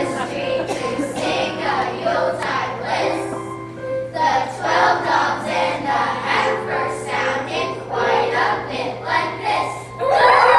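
Children's choir singing a Christmas song together, phrase after phrase, with a sudden louder swell just before the end.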